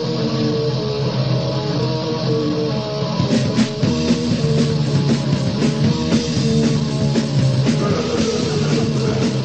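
Opening of a crust punk track: a guitar riff with held chords, with the drums coming in about three seconds in.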